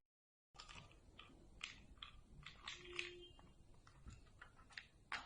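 Faint, scattered light clicks and taps at an uneven pace, starting after half a second of dead silence.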